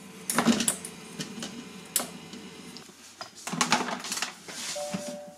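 Knocks, clinks and scrapes of cookware being handled and set down: a stainless steel bowl of potatoes and the plastic steamer dish being placed on a food processor, over a faint steady hum that fades a few seconds in. A short beep sounds near the end.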